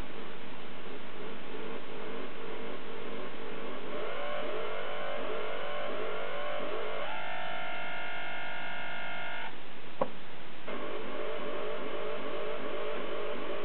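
Homemade sound generator built from two linked neon-lamp relaxation oscillators, making electronic tones: a buzzy drone at first, then repeated swooping chirps about two a second, a steady multi-tone beep for a couple of seconds, a click near ten seconds, and the chirps again.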